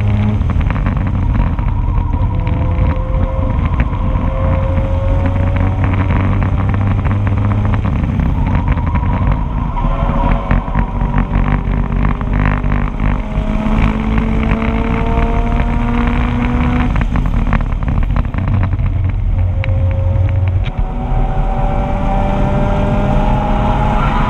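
2004 Mazda RX-8's two-rotor Wankel rotary engine pulling hard on track, its pitch climbing, dropping back and climbing again over and over as it runs up through the gears. A camera mount rattles over the engine, most busily in the middle.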